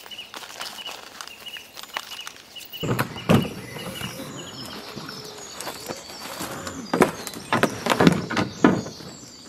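Birds chirping, then footsteps crunching on river shingle and a series of knocks and thumps as gear is loaded into a canoe. The loudest knocks come about three seconds in and in a cluster near the end.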